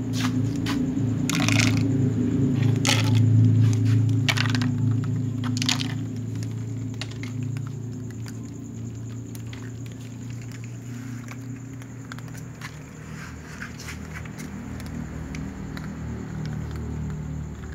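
Cats eating dry kibble: sharp clicks and knocks of kibble and plastic food bowls on a wooden ledge, most of them in the first six seconds, over a low rumble that is loudest early on and then fades.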